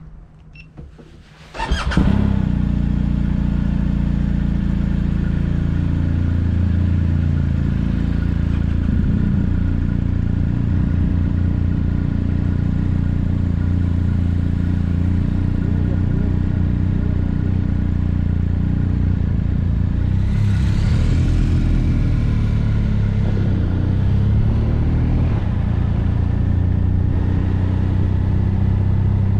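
Motorcycle engine comes in suddenly about two seconds in and runs steadily, with a brief rise and fall in revs about two-thirds of the way through.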